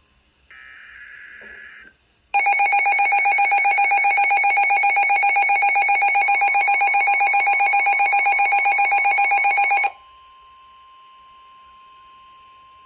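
NOAA weather radio receivers going into alert: a short burst of the SAME digital header's chirping data tones, a brief pause, then the radios' built-in alarm beeps loudly in a fast, pulsing pattern for about seven seconds. It cuts off suddenly, leaving the broadcast's steady 1050 Hz warning alarm tone, quieter, from the radio speaker.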